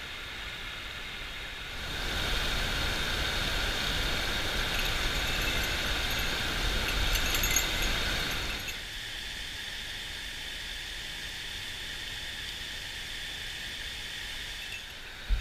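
Steady rush of flowing river water over shallow stones, louder and fuller for about six seconds from two seconds in, then settling back to a quieter steady rush.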